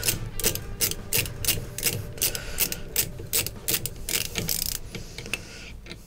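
Ratchet wrench clicking in quick repeated strokes, about three a second, as it backs out the bolt holding the blower wheel on the dryer's blower motor. The clicking thins out near the end.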